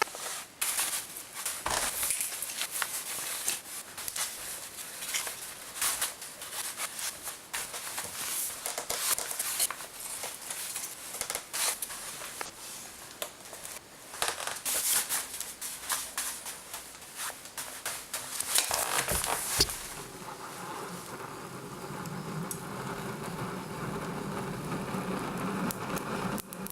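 Fire being laid and lit in a stove-fireplace: irregular crackles, clicks and rustling of kindling and wood. About twenty seconds in, this gives way to a steadier, fuller rushing noise.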